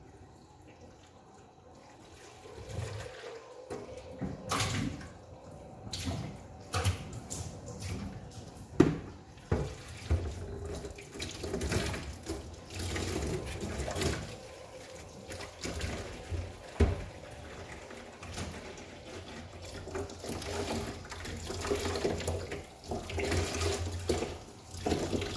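Dishes being washed in a sink under a running tap, with irregular clinks and knocks of crockery and utensils. The sharpest knock comes about nine seconds in.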